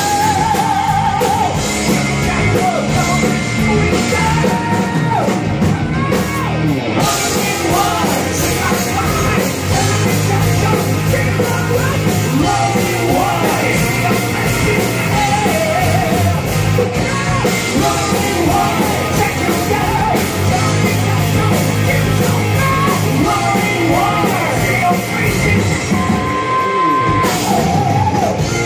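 Rock band playing live: a male lead singer sings high, strained vocal lines over electric guitar, bass guitar, drums and keyboard.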